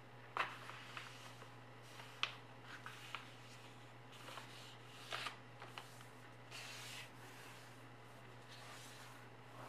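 A sheet of 80 g/m² A4 paper being folded and creased by hand: soft rustling with a few crisp crackles as the folds are pressed, the sharpest about half a second in, again around two seconds and around five seconds, and a longer rustle near seven seconds.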